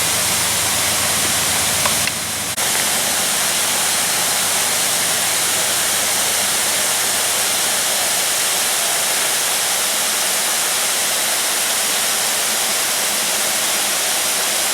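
The waterfall on Bear Run, a loud, steady rush of falling water with a brief dip about two seconds in.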